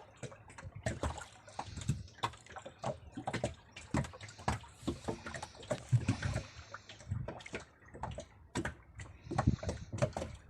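Irregular knocks and clatter aboard a small fishing boat at sea, with water sloshing against the hull.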